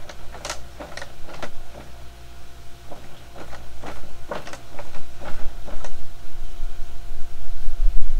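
Scattered light clicks, knocks and scrapes of containers and tools being handled on a workbench while a batch of gelcoat is mixed, over a faint steady hum. Wind rumbles on the microphone near the end.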